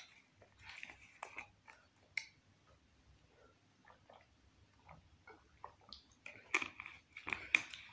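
Someone handling and drinking from a plastic juice bottle: faint scattered clicks and soft sounds, with a few louder short sounds near the end.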